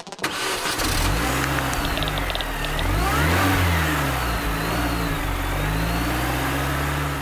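Car engine starting, then revved up and back down a few times before settling into a steady run.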